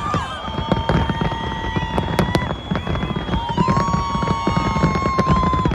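Fireworks display going off: a dense run of bangs and crackles over a steady low rumble, with long held whistling tones sounding over them.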